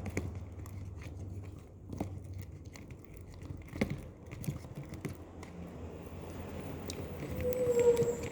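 Sticky, freshly activated slime being stirred in a bowl, giving irregular small wet clicks and squelches. A low hum fades out in the first second and a half, and a brief steady tone sounds about seven and a half seconds in.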